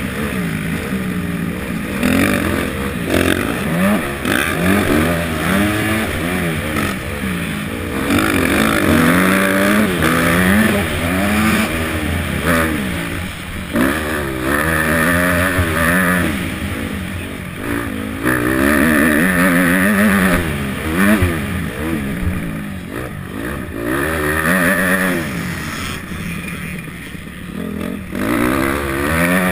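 250-class motocross bike engine racing, its pitch climbing and dropping over and over as the throttle is opened and shut and gears are changed around the track, heard from the rider's helmet.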